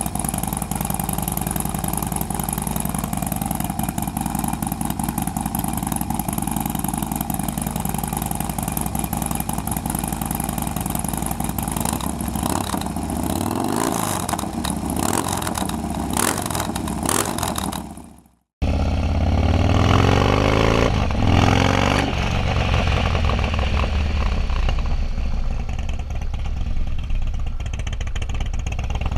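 2016 Harley-Davidson Dyna's V-twin running through a full 2-into-1 aftermarket exhaust: idling steadily, then revved up and down several times. After a sudden cut about 18 seconds in, the same bike is heard under way, accelerating in rising pulls.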